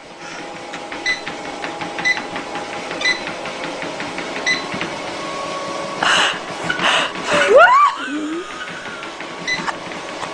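Motorized treadmill running, a steady hum with a light click about once a second as the belt turns. Between about six and eight seconds in, a person's voice comes in briefly, rising in pitch.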